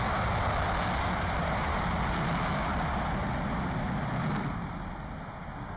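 The four General Electric F101 turbofans of a B-1 Lancer at full afterburner on takeoff: a loud, steady rush of jet noise. About four and a half seconds in it turns duller and a little quieter as the bomber climbs away.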